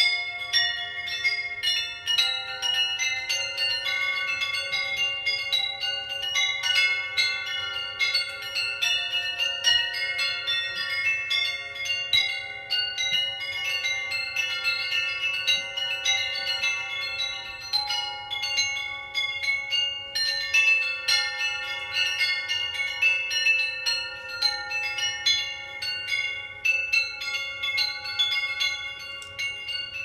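A percussion ensemble playing tuned metal percussion: quick, dense strikes on bell-like pitched instruments whose tones ring on and overlap into a shimmering, chime-like texture. The pitches shift every few seconds.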